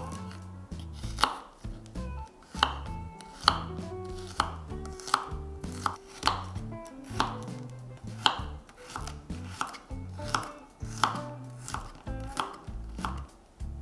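Kitchen knife chopping garlic cloves on a wooden cutting board: a steady run of sharp knocks as the blade strikes the wood, about one every two-thirds of a second.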